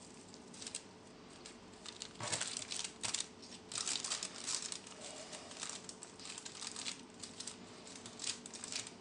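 Baking paper crinkling and rustling under hands that are pressing and shaping raw ground-meat mixture, in irregular bursts that are loudest a little after two seconds and again around four seconds.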